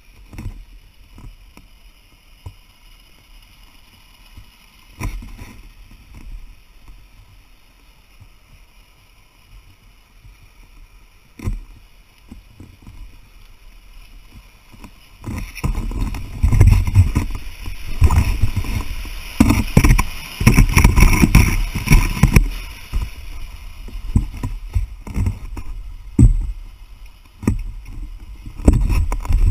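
Handling noise from a plastic kayak being moved and dragged. A few separate knocks in the first half, then loud, irregular knocking and rumbling from about halfway in.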